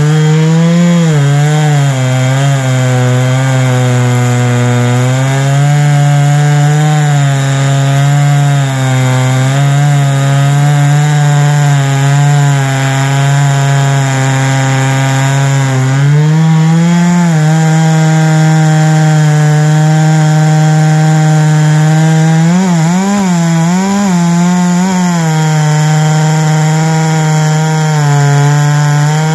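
Huztl MS660-clone two-stroke chainsaw running near full throttle in a chainsaw mill, ripping lengthwise through a big cherry log. The engine note holds mostly steady but sags and wavers a few times as the cut loads it, most noticeably about 23 to 25 seconds in.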